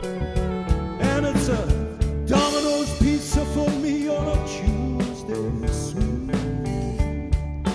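Rock band music with no sung words: a drum beat under a lead line that bends up and down in pitch.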